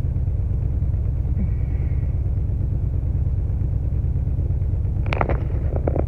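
Steady low rumble inside a car with its engine running, heard from the cabin. A brief clatter of a few sharp clicks about five seconds in.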